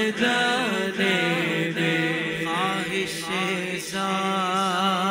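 A male voice singing a naat in a long wordless melismatic run, sliding through ornamented turns and then holding a wavering note about four seconds in, over a steady sustained drone.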